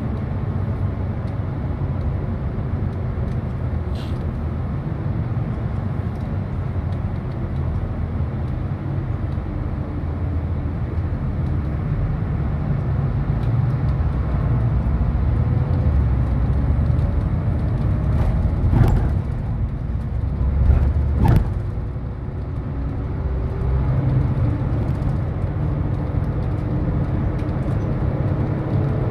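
City bus running along the road, heard from inside: a steady low rumble of engine and road noise, with a faint whine rising in pitch at times as it picks up speed. Two sharp knocks about two-thirds of the way through.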